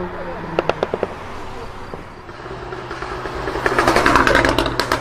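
Car engine with its exhaust popping and crackling. A few sharp pops come about a second in. Then the engine builds and, near four seconds, gives way to a rapid, loud run of crackles.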